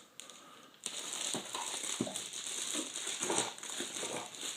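Packaging being handled while a laptop is unwrapped: irregular crinkling and rustling with soft knocks, starting about a second in.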